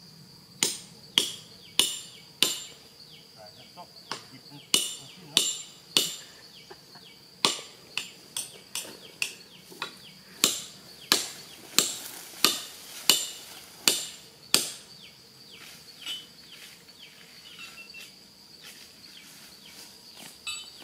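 Hammer blows driving climbing pegs into a tree trunk: sharp knocks every half second or so, with two short pauses, fading to faint taps after about 15 seconds. A steady high insect drone runs underneath.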